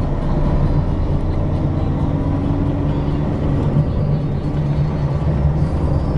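Car driving along a road: steady low engine and road rumble.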